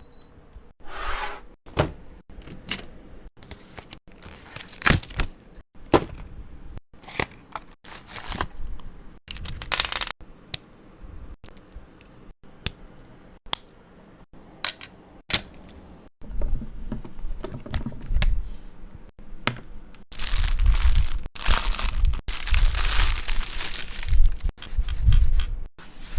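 Unboxing handling sounds: a run of sharp taps and clicks as items and packaging are handled, then louder rustling and tearing of packaging from about twenty seconds in.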